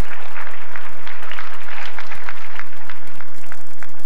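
Audience applauding, the clapping thinning to fewer, scattered claps near the end.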